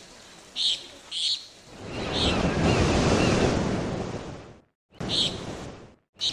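Ocean surf: a wave swells up and washes in, cuts off, then a shorter wash follows, with a few short high chirps over it.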